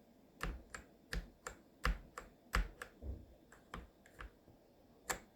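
Mechanical keyboard keys being pressed one at a time on an SPC Gear GK650K Omnis with Kailh switches: about a dozen separate clicks at an uneven pace, several with a dull thud as the key bottoms out, and a sharp one near the end.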